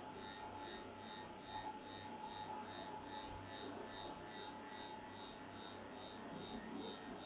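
Faint background electronic hum and hiss, with a steady tone and a regular high-pitched pulsing about two to three times a second.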